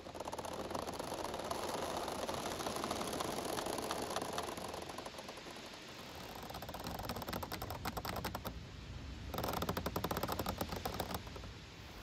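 Giant bamboo culms creaking and clicking as they sway in the wind and rub against each other, over a steady rustle of wind and leaves. The creaking turns into a dense run of rapid clicks from about halfway through until near the end.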